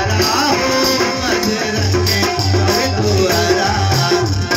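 Live bhajan accompaniment: an electronic keyboard and a harmonium play a melody over a steady low drum beat with rattling percussion.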